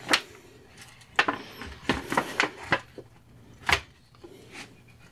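Irregular sharp clicks and light knocks from a silicone casting mold and its rubber bands being handled and pulled apart after a pewter pour.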